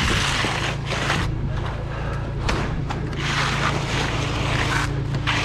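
Ready-mix concrete truck's diesel engine running steadily, with irregular bursts of rough scraping noise over it.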